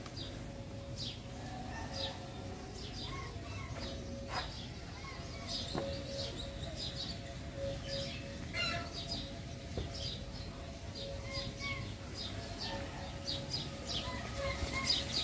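Many small birds chirping, with short high chirps coming thick and fast throughout, over a faint steady hum.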